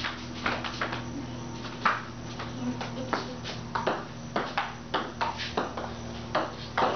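Table tennis rally: the plastic ball clicking off the table and paddles in an uneven run of sharp taps, two or three a second, over a steady low hum.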